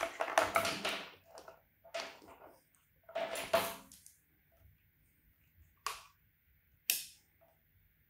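Handling noise from a handheld digital multimeter and its test leads: irregular rustling and knocks of plastic, then two sharp clicks about a second apart near the end.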